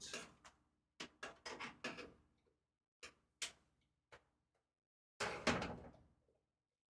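Irregular knocks and clatter of hard parts being pushed and tapped into place inside a PC case while a cooler part refuses to seat, in several short groups with the loudest near the end.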